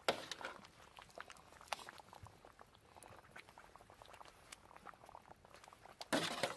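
Thick, hot haleem bubbling and popping in a large metal pan while a ladle and a hand scrape and tap the mixture against metal bowls, with a short louder scrape about six seconds in.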